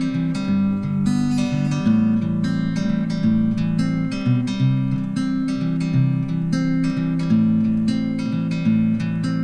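Background music: acoustic guitar playing plucked and strummed chords at a steady pace.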